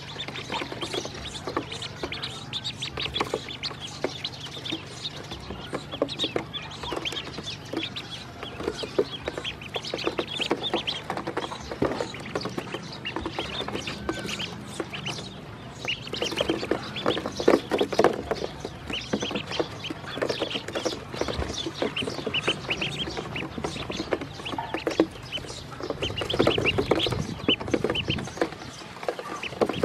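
Ducklings peeping continually in many short high calls, with dense clicking and scuffling as they peck food and move about on the hard plastic bed of a toy truck. The clicking and scuffling grow louder about halfway through and again near the end.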